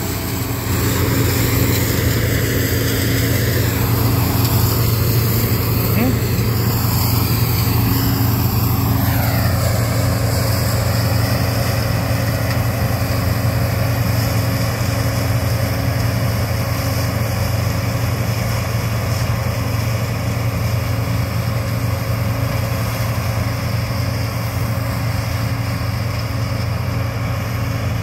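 Combine harvester running steadily as it harvests soybeans, a loud engine hum whose pitch drops about nine seconds in as the machine passes and moves away.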